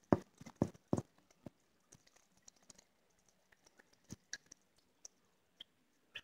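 A few louder knocks in the first second, then scattered light clicks, over a very faint steady hum from a quietly running Delfin aquarium filter.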